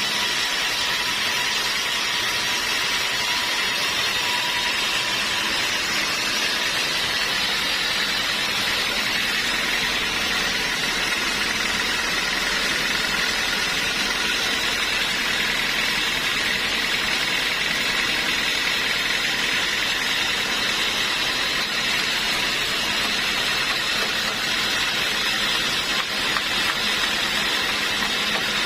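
Sawmill running steadily while sawing a log: an even, continuous machine noise with no breaks.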